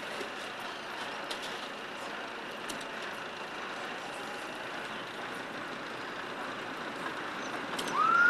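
Steady outdoor background noise with a few faint clicks. Near the end comes a short whistle-like tone that rises and falls within about half a second, the loudest sound here.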